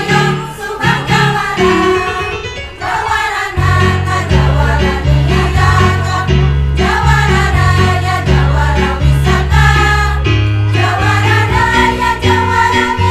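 Women's choir singing in several parts over an instrumental accompaniment with a steady bass line. The accompaniment thins out for about a second, roughly three seconds in, then the bass comes back stronger.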